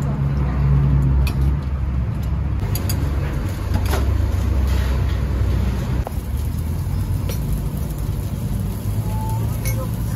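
Steady low rumble of a busy outdoor street-food stall, with a few sharp clinks of metal utensils.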